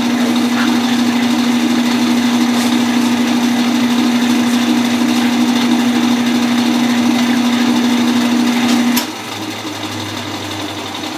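Kenmore KLA7924FQ0 belt-drive top-load washer running empty with a loud, steady motor hum that cuts off abruptly about nine seconds in as the cycle finishes, leaving a fainter low hum.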